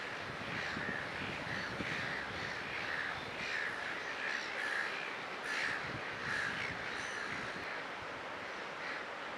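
Harsh bird calls repeating over and over, over a steady wash of breaking surf.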